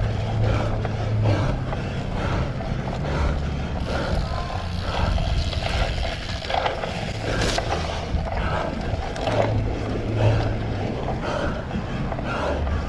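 A cyclocross bike being ridden over rough ground: wind rumbling over the rider's camera microphone, with tyre noise and frequent knocks and rattles from the bike.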